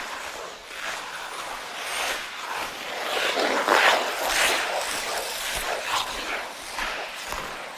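Ice skate blades scraping and carving across ice in a series of uneven strokes, the loudest about four seconds in.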